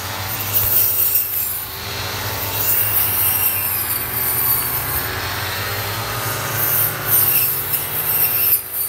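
Petrol brush cutters running steadily at high speed, cutting through grass and herbs.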